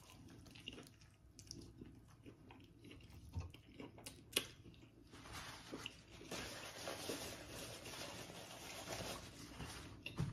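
Close-miked mouth sounds of a man biting into and chewing a slice of birria pizza, with small clicks and one sharp click about four seconds in. From about five seconds in, a steadier rustle of a paper napkin as he wipes his hands.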